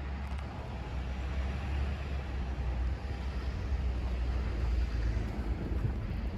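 Blizzard wind buffeting the microphone as a fluctuating low rumble over a steady outdoor hiss, swelling a little toward the middle.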